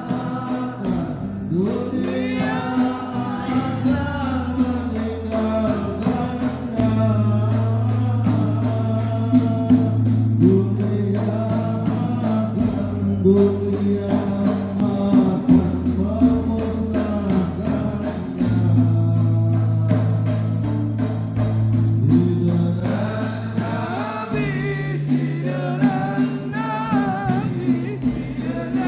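A devotional song sung by a group of voices over instrumental accompaniment, with held bass notes that change every few seconds and jingling percussion keeping a steady beat.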